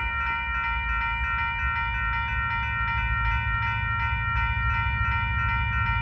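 Railroad crossing bell ringing in rapid, evenly spaced strokes over the low rumble of diesel freight locomotives.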